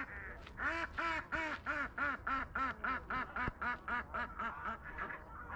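A duck quacking in a rapid run of about four calls a second, the calls fading toward the end.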